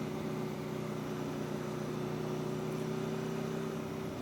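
Motorcycle engine, an Aprilia Tuono V4 1100's V4, running at a steady cruise with an even, unchanging note that shifts slightly near the end.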